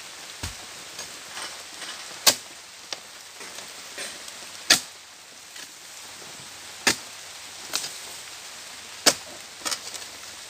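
Blade of an oil palm harvesting pole hacking into the fruit-bunch stalk and frond bases of a young palm: four sharp chopping strikes about every two and a half seconds, with a few lighter knocks between, over a steady hiss of rain.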